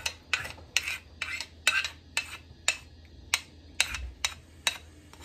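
A metal spoon clinking against a glass jug as the last of the egg mixture is scraped out: about ten sharp clinks, roughly two a second, stopping near the end.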